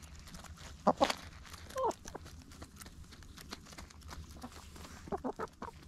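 Hens pecking at a tray of greens and fruit, beaks tapping and rustling through the parsley, with a few short clucks about a second in and again near the end.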